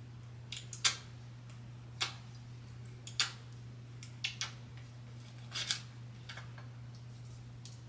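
Scattered short, crisp rustles and clicks, roughly one a second, from hands sectioning hair and working a nozzle-tip scalp serum applicator into the scalp, over a steady low hum.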